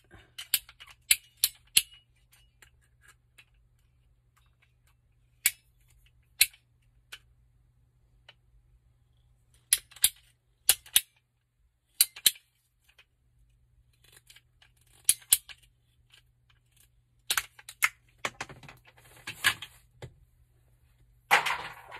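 Hand PVC pipe cutter cutting a length of PVC pipe: sharp clicks and snaps, singly and in quick clusters of three or four, with a short scraping hiss near the end, over a faint low hum.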